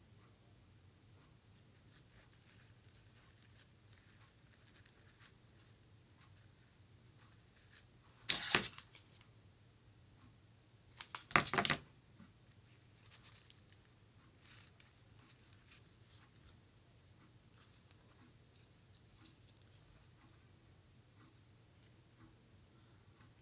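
Hands handling preserved flower petals and craft materials: two short, loud rips or rustles about three seconds apart, then light scattered rustling and small ticks.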